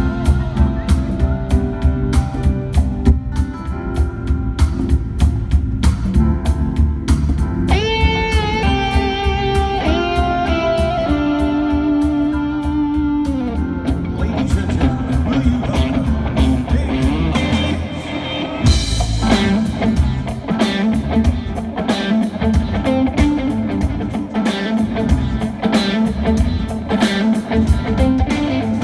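Live rock band playing over a hall PA, led by a loud electric guitar over drums and bass. The guitar bends several notes about a third of the way in, and the bass drops out briefly past the middle before the band carries on.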